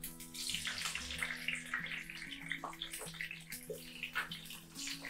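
Bell pepper rings, some stuffed with ground pork, sizzling in hot oil in a frying pan: a steady fizzing sizzle with many small crackles as more rings are laid in. Soft background music with a simple melody plays under it.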